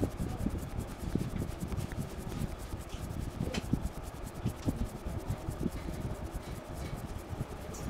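Hands rubbing a person's scalp and hair in an intense head massage: a rough rubbing with many soft, irregular thumps.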